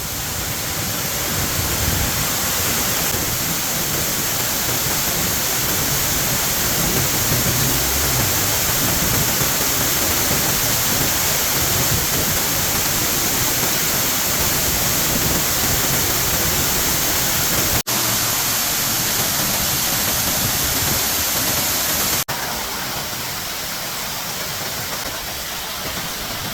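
Waterfall: a steady, loud rush of falling water, with two momentary dropouts in the later part and a slightly lower level after the second.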